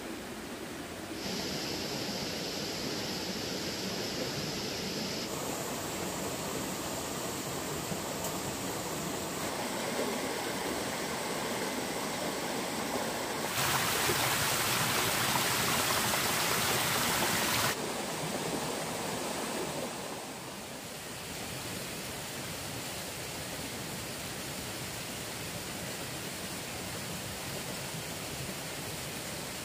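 Stream water rushing and splashing, a steady noise that shifts abruptly in loudness and brightness several times, loudest and brightest for about four seconds in the middle.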